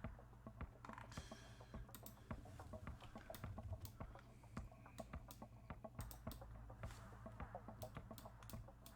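Faint, irregular clicking and tapping of a computer keyboard, over a low steady hum.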